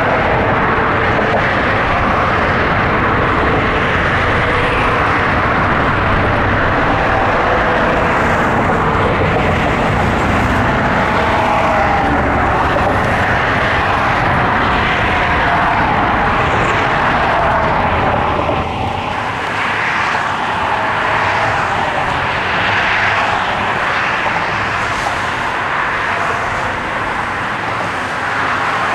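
Motorboat engine running steadily under way, with a faint engine whine that wavers in pitch over a loud rushing noise; the deep rumble drops away about two-thirds of the way through.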